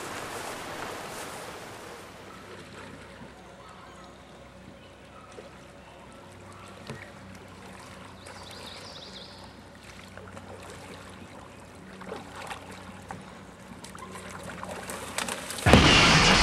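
Quiet creek-side ambience: faint water with a few scattered knocks and splashes from a kayak being paddled. Music cuts in suddenly and loudly near the end.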